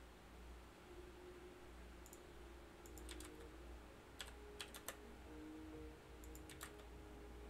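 Near silence with a few faint computer keyboard and mouse clicks in three small clusters, about three, four and a half and six and a half seconds in, over soft background music and a low hum.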